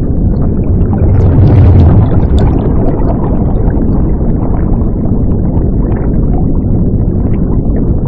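Underwater rumble-and-bubbles sound effect, a dense low rush of water that swells about a second in.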